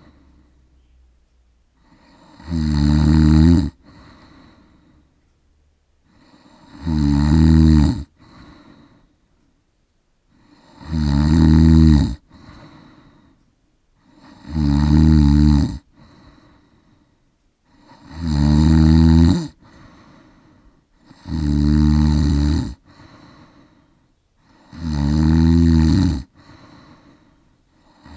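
A man snoring in his sleep: seven loud snores, one about every three and a half to four seconds, each lasting about a second and a half, with faint breathing between.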